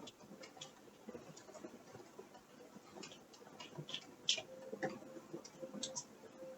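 Faint, irregular creaks and ticks, about a dozen short clicks at uneven intervals, over a faint steady hum.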